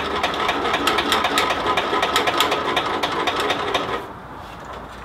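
Electric starter cranking a riding mower's Briggs & Stratton Intek engine for about four seconds, a rapid steady mechanical clatter that stops without the engine catching. The owner blames too much compression.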